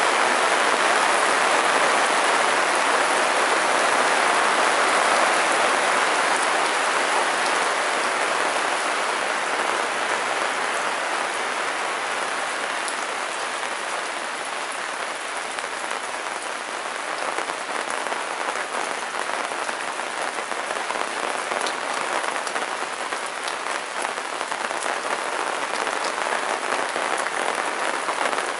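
Steady rain falling on wet cobblestone paving: an even hiss with scattered individual drops ticking, a little heavier at first and easing slightly partway through.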